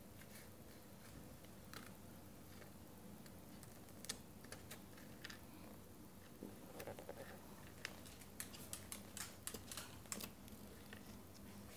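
Faint, irregular clicks and taps of a baby's fingers and small cereal puffs on a plastic high-chair tray, coming more often in the second half.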